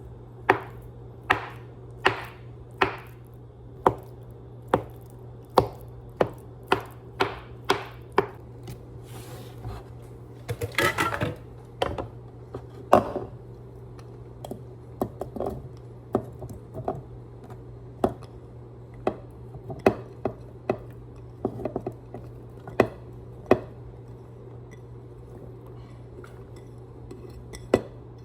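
Knife chopping on a cutting board: crisp strokes at about one a second, a brief denser flurry of cutting and scraping, then scattered chops, over a steady low hum.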